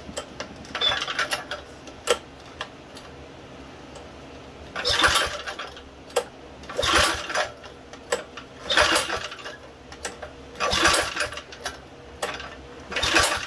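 Tecumseh HS-50 engine being pull-started by its recoil starter: a few light clicks, then five hard pulls about two seconds apart, each cranking the engine briefly. It does not catch and run between pulls; it would only start later with a sniff of ether.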